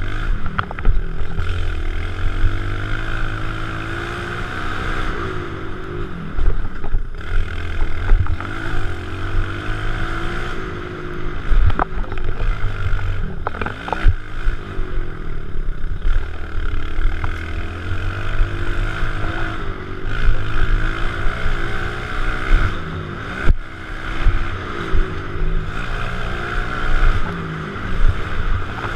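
Kawasaki KLX110 pit bike's small air-cooled single-cylinder four-stroke engine being ridden hard, the revs rising and falling with each throttle change and gear shift. A few sharp knocks break in along the way.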